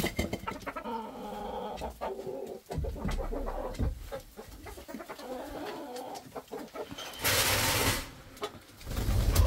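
Hens clucking and crooning in a low, wavering drone, with a short, loud burst of rustling noise about three-quarters of the way through.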